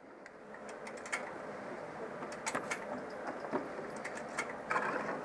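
A rifle being handled and readied to fire: a few sharp clicks and knocks over a steady rushing noise.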